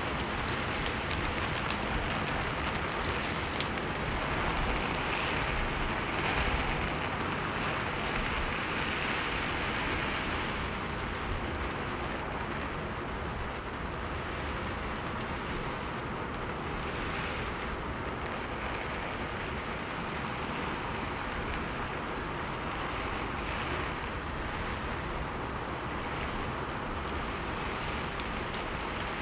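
Steady rain falling on a roof: a dense, even patter of drops, a little heavier for the first ten seconds or so and then easing to a constant level.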